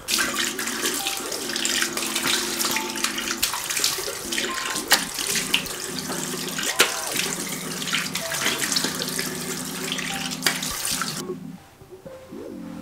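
Bathroom tap running into a sink, with irregular splashes as water is scooped up to rinse cleansing oil off the face. The water stops abruptly near the end.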